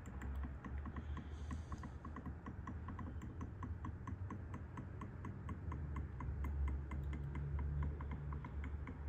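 Upturned magenta ink bottle draining into the ink tank of an HP Smart Tank 515 printer: a regular run of small clicks, about four a second, as the bottle empties into the tank.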